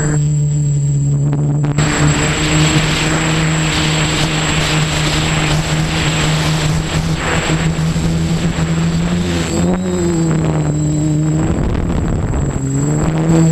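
OFM Seeker 450 quadcopter's electric motors and propellers running with a steady hum, heard from the camera on board; the pitch shifts near ten seconds in and again near the end as the throttle changes. From about two seconds in, wind rushes over the microphone until about nine seconds.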